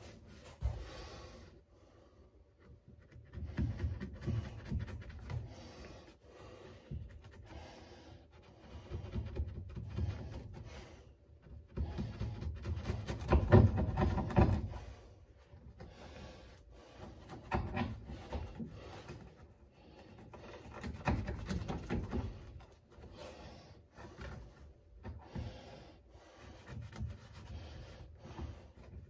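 Automotive carpet being rubbed and pressed into place by hand, in irregular bouts of rustling with scattered light knocks.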